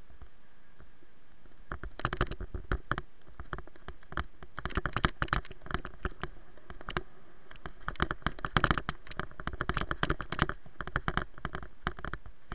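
Footsteps crunching and scraping on a gravel path, in uneven clusters of sharp crackles. It starts about two seconds in.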